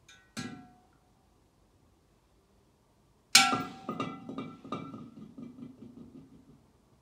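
A mannequin head swinging on a metal chain knocks against the mannequin heads on the floor: a light knock and a sharper one at the start, then a loud clattering strike a little past three seconds in, followed by a run of fading knocks and rattles as the struck heads rock and the chain clinks.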